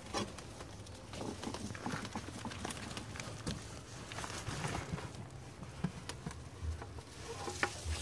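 Potting soil sliding and spilling out of a tipped plastic bucket into a plastic storage tote, with soft irregular pattering and small knocks of soil and plastic.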